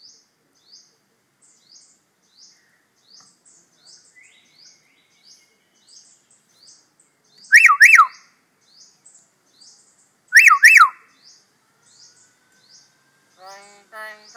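A talking pet bird gives two loud double whistles a few seconds apart, each a quick pair of sharp rising-and-falling whistles. Faint high chirps repeat steadily underneath, and near the end the bird starts a voice-like mimicked call.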